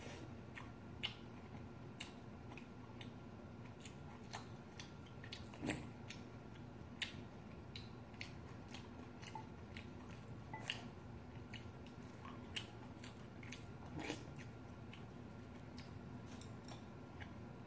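A person chewing and eating rice soaked in green tea, with irregular sharp clicks of chopsticks and a spoon against a ceramic bowl.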